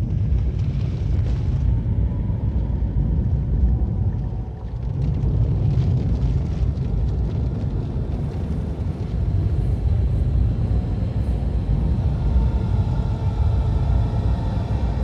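Steady low rumble that briefly dips about four and a half seconds in.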